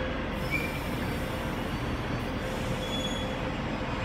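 Taipei Metro electric train slowing to a stop beside the platform: a steady rolling rumble with a low steady tone, and two short high squeaks as it brakes, about half a second and three seconds in.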